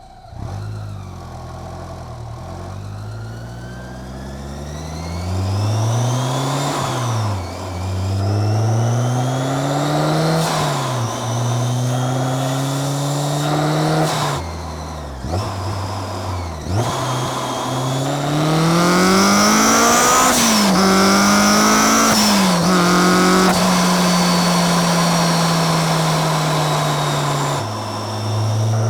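Supercharged Honda S2000's 2.2-litre four-cylinder engine with a Kraftwerks supercharger, accelerating through the gears: the engine note and the supercharger's high whine climb together several times, dropping sharply at each gear change. After the last pull it holds a steady pitch for several seconds, then drops again near the end.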